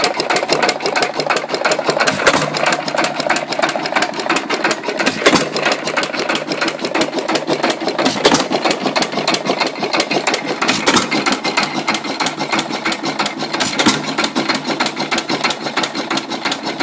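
Jaeger 2 hp single-cylinder hit-and-miss engine running on its own with its flywheels spinning: a fast, continuous mechanical clatter, with a louder beat about every three seconds.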